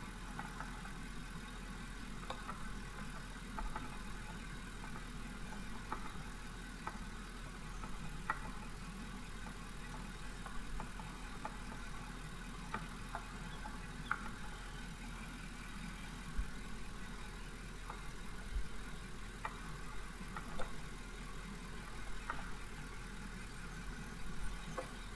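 Pickup truck engine idling steadily, with light irregular clicks as the headlight aiming screw is turned.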